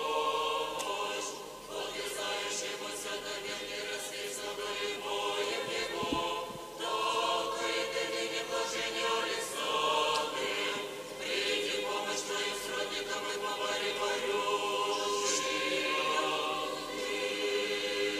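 Russian Orthodox church choir singing unaccompanied, holding sustained chords in long phrases with short breaks between them.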